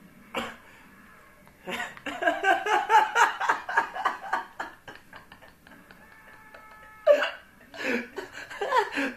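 A person laughing in a quick run of pulses, about five a second, for around three seconds. A few shorter bursts of laughter follow near the end.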